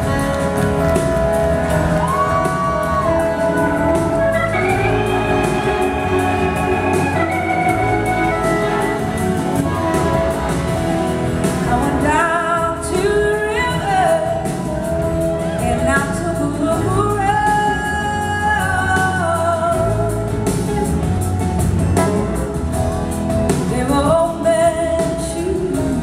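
A live band playing a slow soul-blues song: a woman sings the lead over electric guitars and drums.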